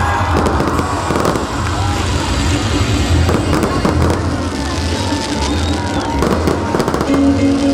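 Fireworks display going off: a constant low rumble of launches and bursts, with many quick pops and crackles.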